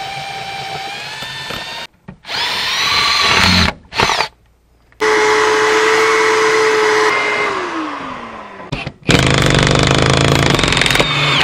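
Cordless drill whirring in several separate bursts as it drives screws into old wooden boards and a metal strip. In the middle, a steady motor hum, likely a shop vacuum, slowly winds down.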